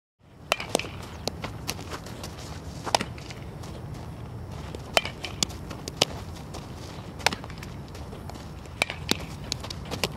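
Softball infield practice: scattered sharp pops and knocks of the ball being fielded and caught in a leather glove, with footsteps on the dirt infield, over steady low outdoor noise.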